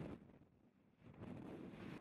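Strong wind buffeting the microphone in a sandstorm, a low rumbling gust that dies down about half a second in and gusts back after about a second.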